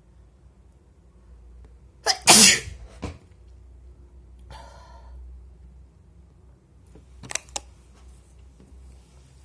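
A person sneezing once, loudly, about two seconds in, with two shorter sharp sounds near the end.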